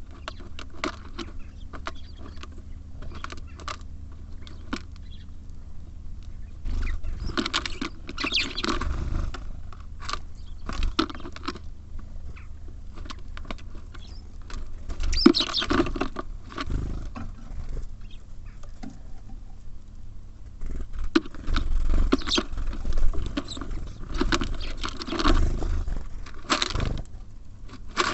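Small birds feeding at a wooden bird feeder: a run of sharp pecking taps and clicks with scrabbling and rustling of seed, coming in several busier spells, over a steady low rumble.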